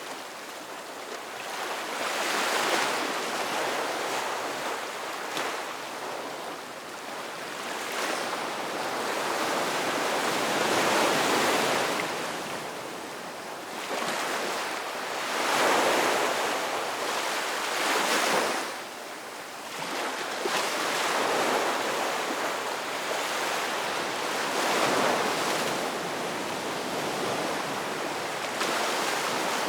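Ocean surf breaking on a beach: a continuous wash of white water that swells and falls back every few seconds as waves come in, the loudest near the middle.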